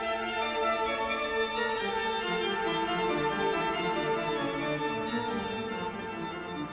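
Organ music holding sustained chords, the lower notes beginning to move about two seconds in.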